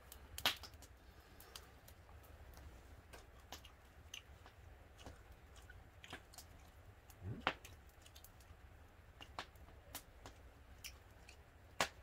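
Wood fire crackling faintly, with sparse sharp pops and clicks at irregular times over a low steady rumble. A short low rising sound comes about seven seconds in.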